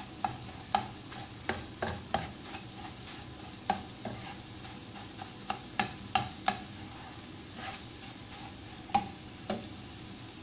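A metal spoon stirring scrambled eggs in a non-stick wok: irregular clicks and taps of the spoon against the pan over a faint steady sizzle of the hot oil.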